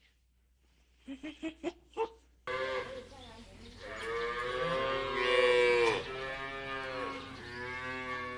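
A few short, sharp animal calls, then a cow mooing: one long moo about halfway through, followed by two shorter moos.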